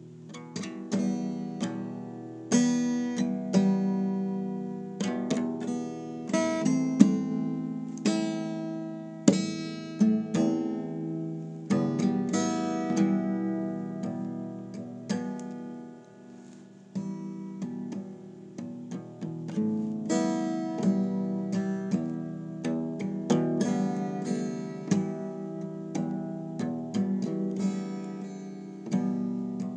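Acoustic guitar playing, notes struck in quick succession and left to ring, with a short lull just past the middle before the playing picks up again.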